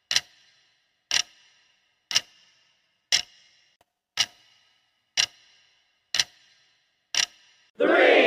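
Clock-style tick sound effect from a rest countdown timer, one sharp tick with a short ring each second, eight in all. Just before the end a loud burst of shouting begins.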